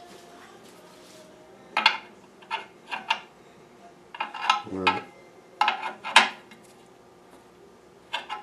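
Steel wrench clinking and tapping against aluminium AN fittings and oil-line nuts as they are snugged up, in a series of irregular sharp metallic clinks.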